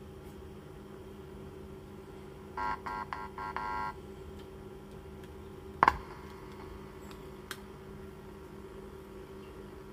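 Steady low hum from a woofer driven by a homemade TIP41/TIP42 transistor amplifier, with a stuttering buzz through the speaker about three seconds in while the 3.5 mm input lead is handled. A sharp pop comes through the speaker about six seconds in as the jack is plugged into the amplifier's input, then a smaller click.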